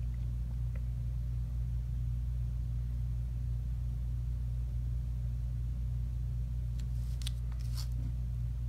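Steady low hum, with a few brief dry scrapes of paper being slid and turned across a wooden tabletop near the end.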